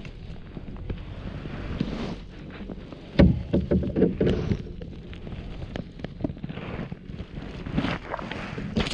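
Kayak paddling: paddle strokes swishing in lake water, with wind on the microphone. A burst of knocks and rattles about three seconds in is the loudest sound, and a few lighter knocks come near the end.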